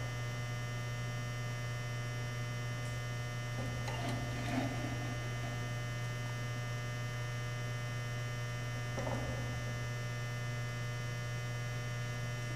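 Steady electrical mains hum, with faint brief knocks of a metal machine vise being shifted on the drill press table about four seconds in and again near nine seconds.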